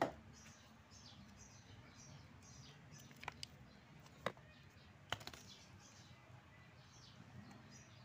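Several sharp, separate clicks and taps of a screwdriver and screws against a washing machine's plastic gear case while it is being screwed down, over faint, repeated short high bird chirps.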